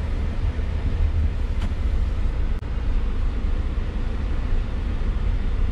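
Steady low rumble of a taxi's engine and road noise, heard from inside the car's cabin while it drives.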